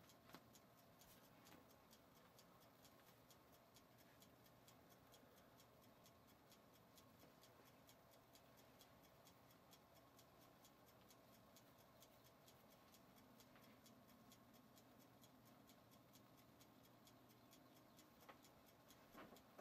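Kitchen timer ticking steadily and faintly as it counts down the baking time; otherwise near silence.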